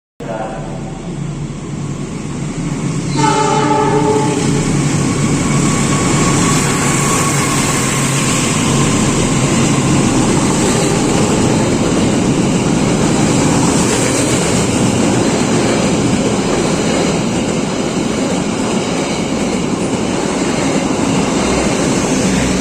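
A passenger train sounds its horn briefly, then again more strongly about three seconds in, and passes loudly with a steady rumble of wheels and carriages.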